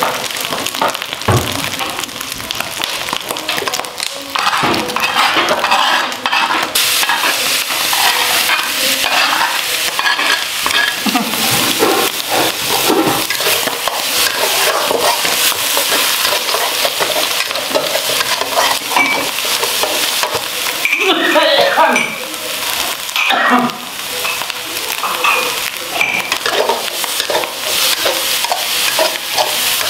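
Metal spatula stirring and scraping chopped ingredients around a wok as they sizzle in hot oil: a steady frying hiss broken by frequent scrapes and clinks of metal on the pan.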